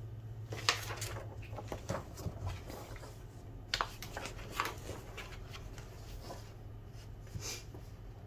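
Paper rustling as a glossy magazine booklet is opened and its pages are unfolded and turned: several short crinkles spread through, over a steady low hum.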